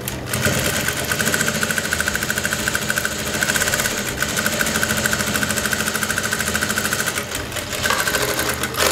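Industrial single-needle lockstitch sewing machine running at speed, its needle going up and down in a fast steady rhythm as it stitches the edge of a flat felled seam through two layers of fabric. It slows about seven seconds in and stops near the end.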